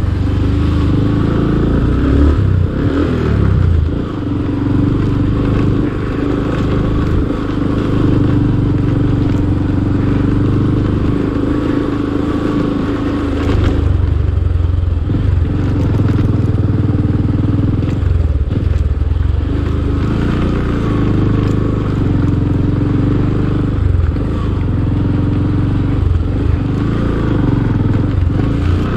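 Motorcycle engine running as the bike rides over a rocky dirt track, its note dipping and picking up again with the throttle, with knocks and rattles from the rough ground underneath.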